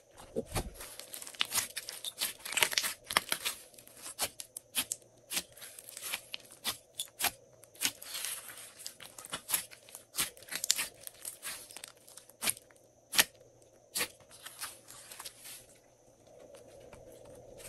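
Glossy slime being stretched, pressed and folded by hand: a quick, irregular run of sharp sticky pops and crackles with stretches of tearing sound as it pulls apart. A soft low thud about half a second in as a lifted fold of slime drops onto the table.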